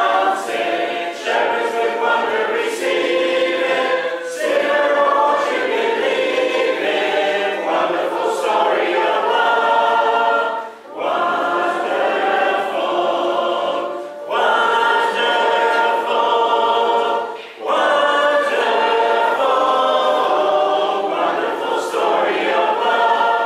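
A mixed choir singing a cappella in sustained sung phrases, separated by short pauses, with no instruments.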